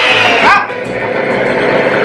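Electric hand mixer whirring in a stainless steel mixing bowl of cake batter, cutting out about half a second in, together with a short rising yelp-like cry, over background music.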